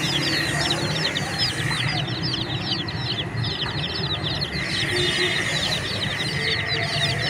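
A crowd of young chicks peeping nonstop, many overlapping high chirps that each fall in pitch.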